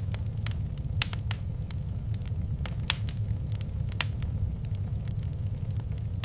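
Wood fire crackling in a fireplace: irregular sharp pops and snaps, the loudest about a second in, near three seconds and at four seconds, over a steady low rumble of the burning fire.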